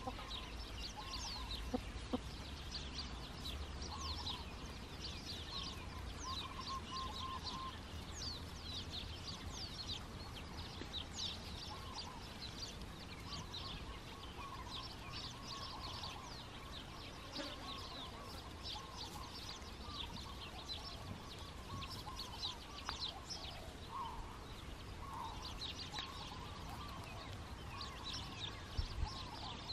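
A flock of hens clucking and murmuring softly as they forage, in scattered short low notes. A busy patter of short, high, falling chirps runs underneath.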